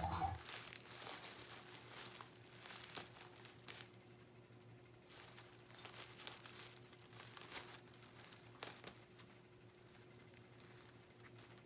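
Crinkled brown packing paper crackling and rustling in irregular bursts as a cat rolls, kicks and paws on it while playing with a toy mouse.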